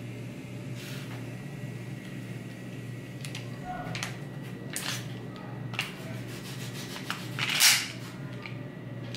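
Handling noise from a full-metal airsoft pistol and its packaging: scattered light clicks and rustles, with one louder rustle near the end, over a steady low hum.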